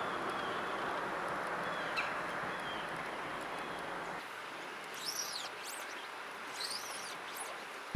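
Steady rush of flowing river water for about the first half, then, after it drops away suddenly, a quieter stretch in which a songbird gives two short bursts of high, sweeping chirps.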